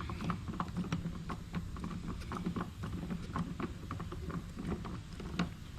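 Irregular light clicks and taps of plastic parts being handled and fitted while assembling an electric pressure washer, over a steady low rumble.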